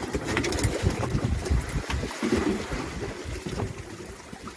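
Wind buffeting the microphone over water noise aboard a fishing boat, with a few light knocks.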